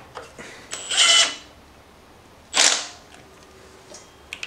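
Impact wrench fired in two short bursts about a second and a half apart, running down the nut on a new alternator's power terminal; light clicks of tools and parts around them.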